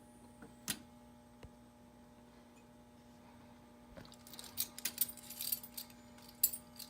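A set of keys jangling and clicking while being used to reset a fire alarm control panel: a few isolated light clicks, then a busier run of jangling from about four seconds in. A faint steady hum sits underneath.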